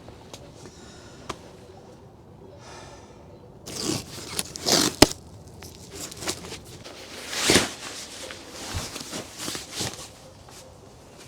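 Scraping and rustling handling noises in a few loud bursts, with a sharp click about five seconds in, after a quiet start.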